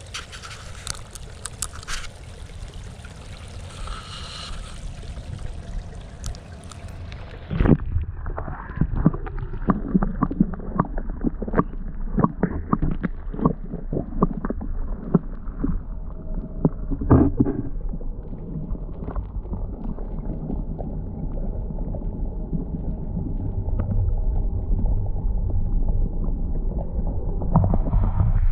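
Water sloshing and gurgling with many irregular knocks and clatters, as in wading and handling gear in swamp water, over a steady low rumble.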